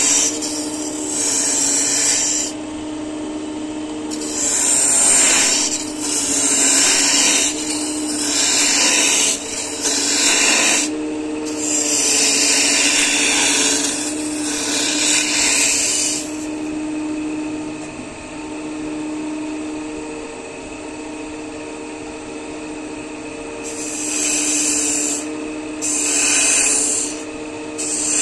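Wood lathe running with a steady hum while a turning tool cuts the spinning wood in repeated scraping passes of one to a few seconds each. One longer cut runs for several seconds, then only the lathe runs for several seconds before two more short cuts near the end.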